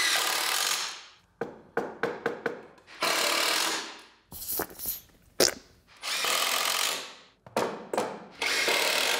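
A cordless power driver driving screws into construction lumber in four bursts of about a second each, with short clicks and knocks between them.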